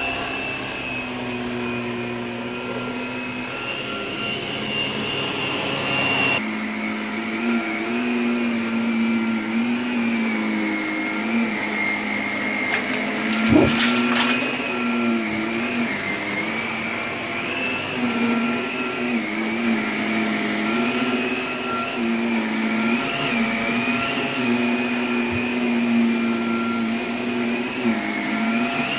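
Bagless upright vacuum cleaner running over carpet: a steady motor whine and hum whose pitch wavers slightly as the load changes. There is a brief knock about halfway through.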